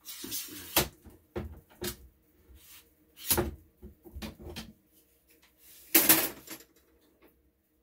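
Workshop handling noise: clicks, knocks and short rustling bursts from tools and parts being handled on a workbench. There is a sharp click a little under a second in, two knocks before the two-second mark, a rustling burst at about three seconds and a louder one about six seconds in.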